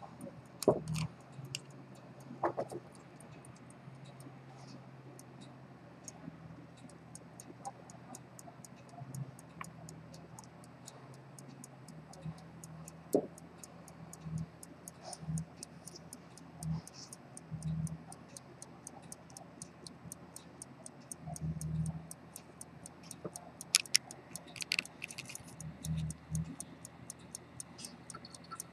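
An antique fusee pocket watch ticking in quick, even beats, with a few louder clicks and knocks from handling at the bench.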